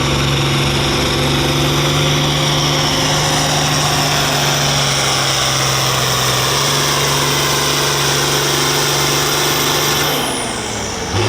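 Turbocharged diesel farm tractor engine running hard and steady under load, with a high whine over it. About ten seconds in the engine drops off and the whine falls away quickly.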